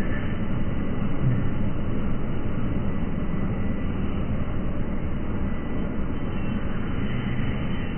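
Street traffic noise with a school bus moving slowly past close by, heard as a deep, even rumble. The sound seems slowed down along with the high-frame-rate picture: it has no high end at all.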